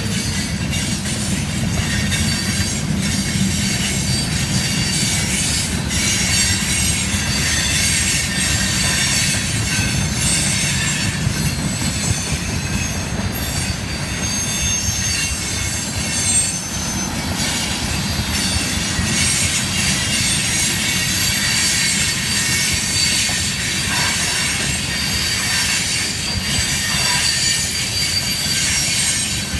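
Freight cars of a Norfolk Southern mixed freight, boxcars and tank cars, rolling past with a steady rumble of wheels on rail, scattered clicks and high-pitched wavering wheel squeal.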